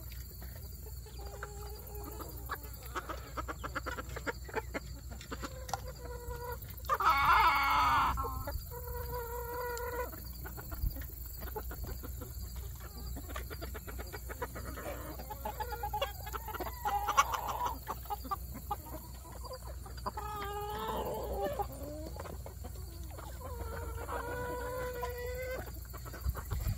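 A flock of chickens clucking and calling, with drawn-out hen calls repeating throughout. A louder, harsher call comes about seven seconds in.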